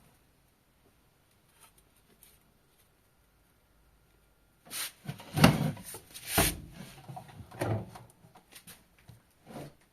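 A run of hard clunks and knocks after some four seconds of near silence, the loudest two about a second apart, then a few lighter knocks.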